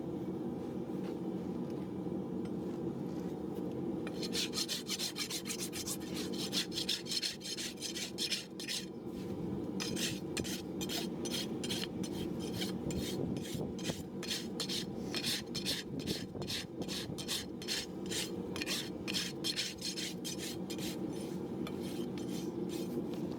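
A farrier's rasp filing a horse's hoof in quick repeated strokes, starting a few seconds in, over a steady low hum.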